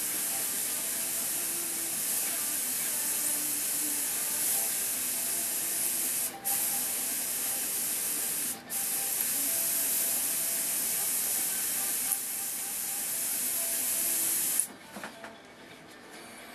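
Airbrush spraying paint: a steady hiss of air that breaks off twice briefly partway through and stops shortly before the end.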